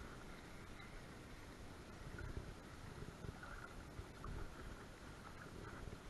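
Low, uneven rumble of wind buffeting the microphone, with faint scattered ticks from a spinning reel being handled and wound.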